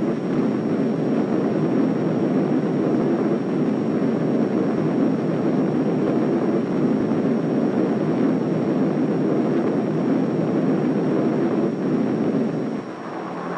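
Steady low rumble of droning propeller aircraft engines, dipping slightly near the end.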